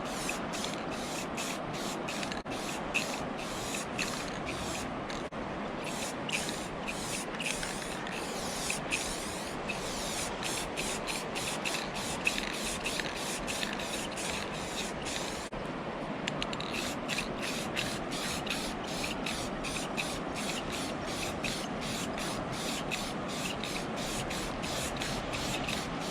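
Paint spraying in a steady hiss, coating a steel ice-saw blade against rust, with two short breaks in the spray about five seconds in and again about two-thirds of the way through.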